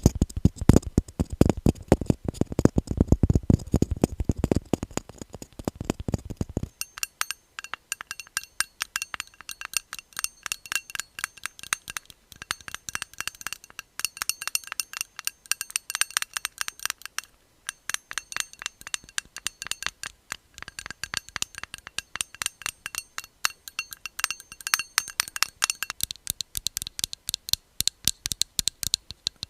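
Rapid fingernail tapping on different objects. For about the first seven seconds the taps are dull and thudding; then they switch to a hard object whose clicks ring with clear tones, and the sound shifts again to another object near the end.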